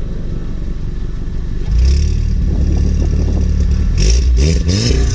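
Volkswagen Golf R Mk7's turbocharged 2.0-litre four-cylinder, on an APR Stage 2 tune, running. It settles into a steady held note about two seconds in, then is blipped about four seconds in, the revs rising and falling with the exhaust crackling and popping.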